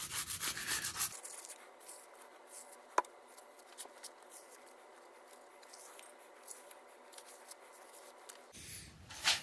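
A piece of gasket material is scraped along the groove of a steel chainsaw guide bar to clean it out. It makes faint, irregular rubbing and scratching, louder in the first second, with a sharp click about three seconds in and a knock near the end.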